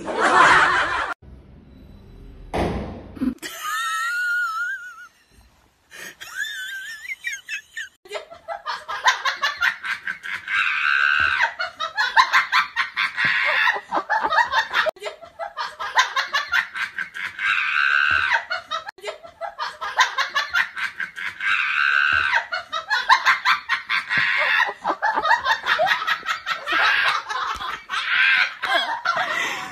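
Laughter in rapid bursts, repeating in an even cycle of a few seconds like a looped laugh sound effect. Before it, a few high wavering squeals.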